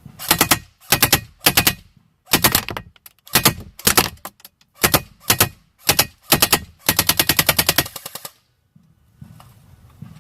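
Lancer Tactical Gen 2 LT-04 airsoft electric rifle firing on full auto, with BBs rattling against the airsoft tank, heard from inside the tank. It fires about ten short bursts, then one longer burst that stops about eight seconds in.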